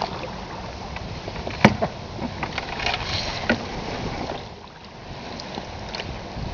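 Open canoe being paddled: paddle strokes and moving water over a steady rushing noise, with scattered small knocks and one sharp knock a little under two seconds in.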